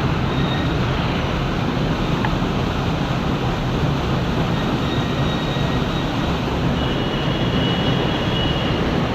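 Steady wind rumbling and buffeting on the microphone, with faint thin high tones briefly near the end.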